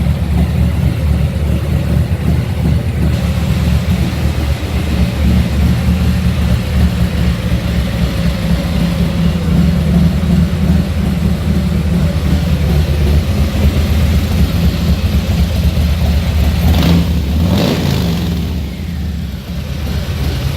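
Harley-Davidson Fat Boy V-twin, fitted with Vance & Hines 300 Series Eliminator slip-on mufflers and a Stage II high-torque cam, running at a loping idle through the pipes. The revs rise briefly twice near the end.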